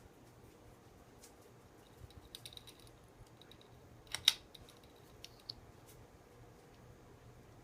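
Light plastic clicks and clacks, with a sharp double clack a little after four seconds, as the plastic pull-chain pulls on a ceiling fan knock together, over a faint steady hum.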